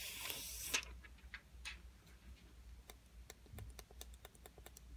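A short rustle of handling, then quick small clicks, several a second, starting about three seconds in: the iPhone 6s Plus home button being pressed over and over to check that it clicks properly.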